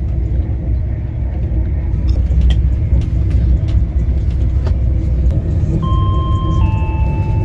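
Steady rumble of a moving CrossCountry passenger train heard from inside the carriage, with a few sharp clicks in the middle. Near the end a two-note chime sounds, the second note lower: the onboard signal ahead of a passenger announcement.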